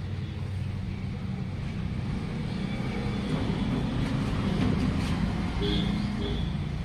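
Steady low mechanical rumble, like a motor or engine running, swelling slightly midway.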